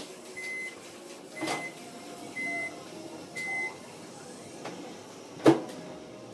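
Microwave oven beeping four times, about once a second, as its timer runs out, then a sharp clunk.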